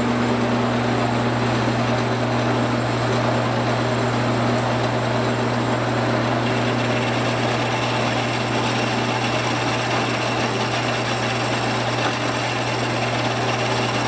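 Ellis metal-cutting band saw running, its blade fed slowly through a steel hydraulic cylinder tube: a steady motor hum under a continuous rasping cut, with a faint high tone joining about halfway through.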